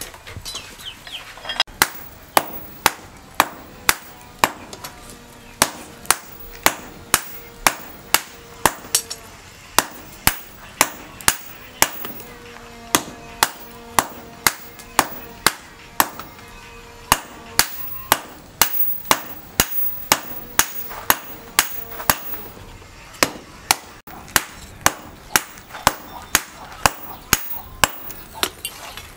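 Hand hammer blows on a red-hot steel billhook blank held on an anvil, about two strikes a second with a few short pauses, each with a brief metallic ring.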